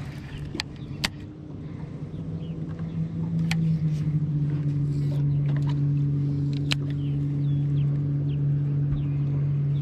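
Boat's electric trolling motor humming steadily at a low pitch, growing louder about three seconds in, with a few sharp clicks, the loudest about a second in.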